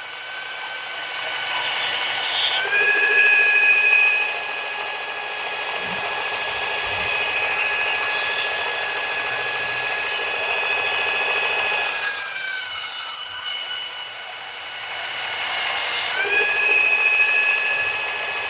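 Work Sharp powered belt sharpener running at slow speed with a steady motor whine, its 120-grit belt grinding the stainless steel blade of a folding knife in several passes: a bright hissing grind comes and goes, and the whine sags slightly in pitch while the blade is pressed to the belt. The passes are raising a burr along the edge.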